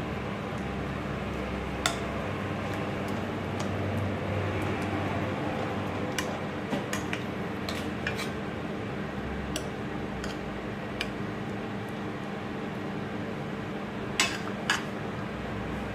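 Chicken frying in butter in a pan, a steady sizzle, with scattered clinks and scrapes of a utensil against the pan as it is stirred; two louder clinks near the end. A steady low hum runs underneath.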